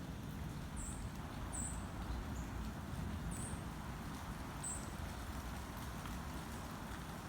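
Outdoor ambience: a steady low rumble with a handful of short, very high chirps spaced a second or more apart.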